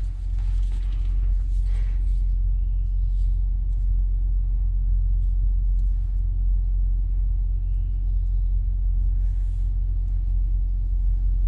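Steady low rumble of wind buffeting the microphone, with a few faint clicks and rustles of solar panel leads being handled.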